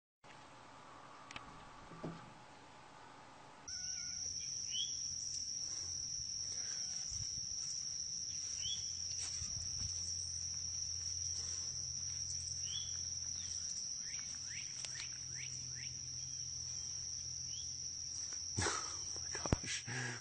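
Insects trilling in one steady, high-pitched note that starts about four seconds in, with short faint chirps scattered through it and a few sharp knocks near the end.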